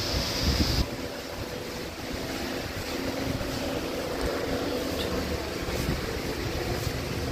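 Steady background room noise with a faint low hum, and a thin hiss that stops about a second in.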